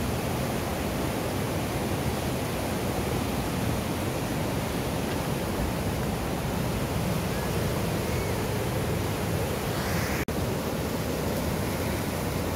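Fast monsoon-fed mountain river rushing over whitewater rapids, a steady noise of churning water, with a momentary cut-out about ten seconds in.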